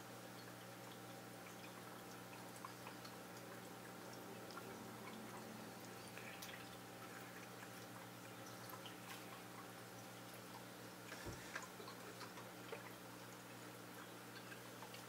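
Faint steady hum of aquarium equipment, with scattered small ticks and water drips and a single soft thump about eleven seconds in.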